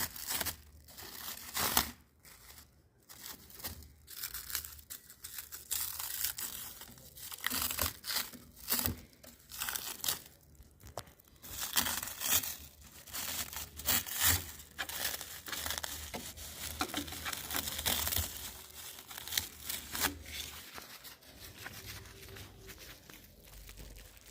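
Packaging being handled and torn open: irregular crinkling and tearing of wrapping, with sharp crackles and rustles coming and going.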